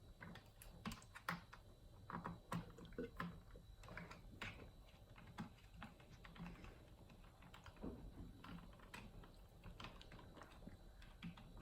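Faint, irregular clicks and taps as small screws are driven with a hex wrench into an RC truck's plastic skid plate and chassis.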